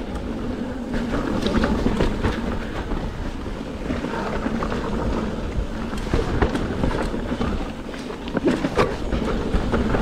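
Mountain bike rolling fast down a dirt trail: tyres on the dirt, with the chain and frame rattling over bumps in frequent sharp knocks, and wind rushing over the microphone.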